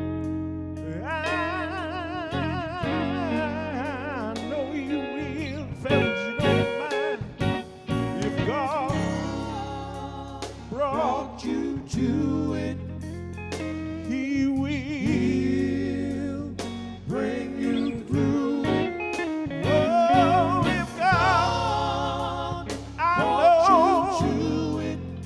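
Live gospel music: a man singing lead with wide vibrato over electric guitar and band accompaniment.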